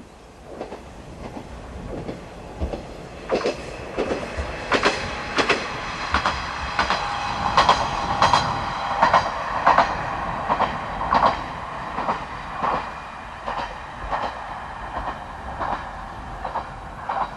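A single-car KiHa 120 diesel railcar passing, its wheels clicking rhythmically over the rail joints. The clicks build to their loudest around the middle and fade as the car draws away.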